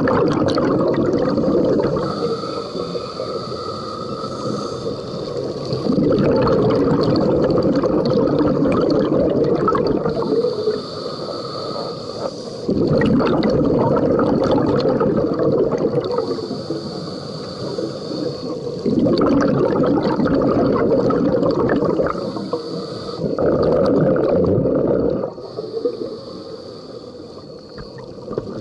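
Scuba diver breathing through a regulator underwater: five long bubbling exhalations alternate with quieter inhalations that carry a steady high hiss from the regulator, one breath about every six seconds.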